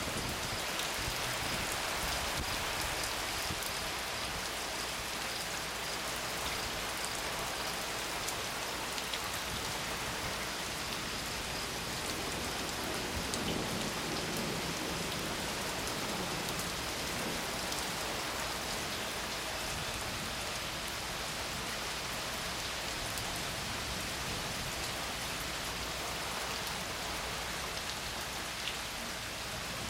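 Steady rain falling during a thunderstorm.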